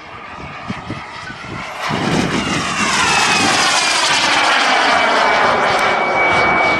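Turbine engine of an RC model jet running with a rush of air, growing much louder about two seconds in. Whining tones slide in pitch, and a steady high whistle holds near the end.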